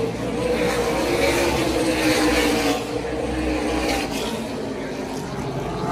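NASCAR Cup Series stock cars' V8 engines running as the field laps the half-mile track, a steady blended engine drone that is louder in the first three seconds and eases a little after.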